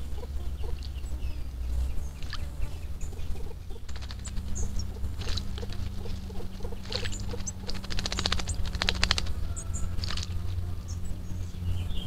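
Creamy-bellied thrush bathing in a small shallow pool, splashing and flicking its wings in the water in patters and quick bursts, the busiest run about seven to nine seconds in. Faint high bird chirps come and go over a steady low hum.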